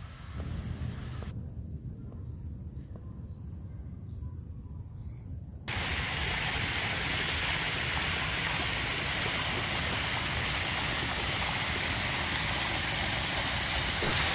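A low rumble, then from about six seconds in a steady rushing hiss of water from a swimming pool's water jets spraying into the pool.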